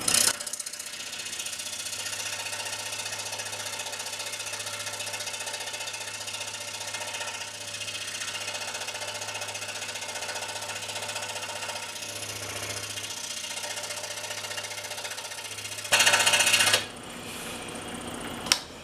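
Scroll saw running and cutting a small piece of thin wood, the footage sped up so the saw's chatter comes fast and dense. A short louder stretch comes about sixteen seconds in, then a quieter stretch and a single click near the end.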